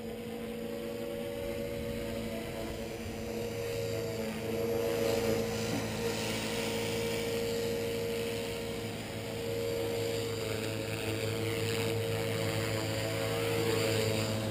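Walkera V450D01 electric RC helicopter in flight: its motor and main rotor make a steady whine and hum at an even pitch. The sound grows louder over the first few seconds as the helicopter comes down and hovers low over the pavement.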